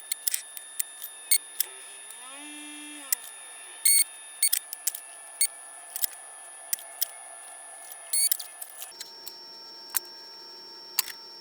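Fast-forwarded workbench handling sounds from soldering wires onto a receiver's power switch: scattered quick clicks and taps over a steady thin high tone, with a short warbling glide about two seconds in and a change in the background tone near the end.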